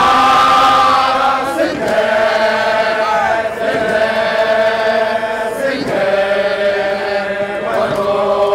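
A group of Zulu regiment men chanting a song together in long held notes sung in several parts, with a new phrase starting every couple of seconds.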